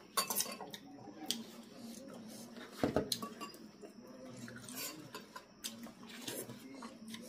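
Metal forks and spoons clinking and scraping against ceramic soup bowls during a noodle-soup meal, in scattered light clinks with the sharpest about three seconds in.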